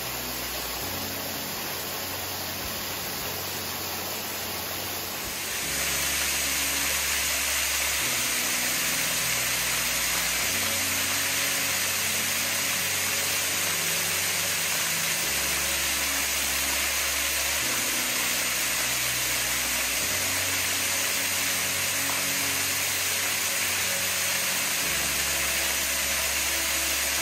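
Small waterfall falling onto boulders into a shallow pool: a steady rushing splash that grows louder about five seconds in. Soft background music of slow, low sustained chords runs underneath.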